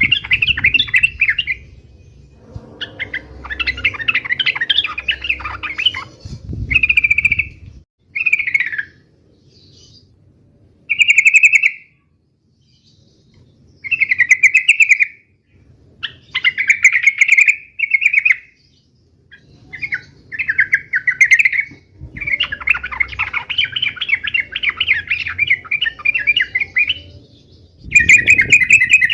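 Yellow-vented bulbuls (trucuk) giving rapid, bubbling chatter in repeated bursts of one to several seconds with short pauses between. These are the excited 'fighting' calls that are played to provoke a caged bulbul into answering.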